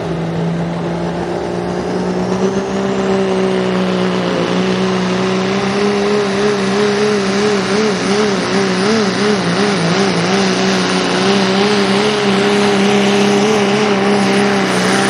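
Turbocharged Cummins inline-six diesel of a Dodge Ram pulling truck running at full power while dragging a weight-transfer sled, the engine note held steady with a thin high turbo whistle above it. The engine pitch wavers up and down for a few seconds about halfway through the pull.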